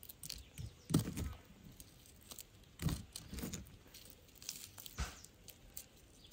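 Crisp chiroti-rava crust of fried ivy gourd crunching and crackling as the pieces are broken apart by hand, in a few short crunches about a second, three seconds and five seconds in. The crunch is the sign that the semolina coating has fried crisp.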